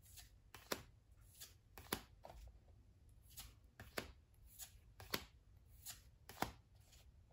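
Trading cards from a booster pack being handled one at a time: a string of light, sharp card snaps, about one every half second to second.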